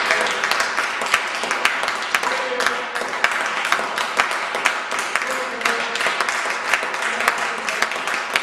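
Audience applause: many hands clapping, dense and steady.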